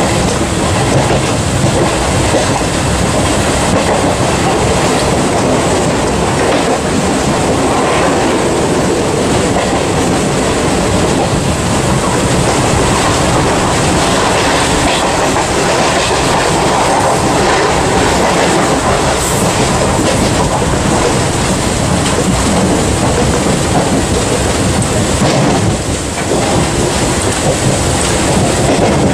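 Mumbai EMU suburban electric train running at speed, heard from inside the driving cab: a loud, steady rumble of wheels on rails. The train is coasting with traction current cut to zero while it runs through an overhead-line neutral section.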